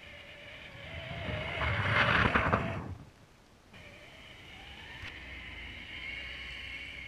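Electric drive motors and gearing of a 1/8-scale RC Snow Tiger tracked snow vehicle whining as it drives, its hard plastic tracks churning snow loudest as it passes close by about two seconds in. The sound cuts off abruptly near three seconds and the motor whine resumes soon after.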